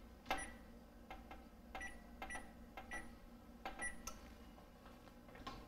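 Electronic oven control panel beeping as its touchpad buttons are pressed to set the oven to preheat: about five short, high beeps, each with a faint tap of the press.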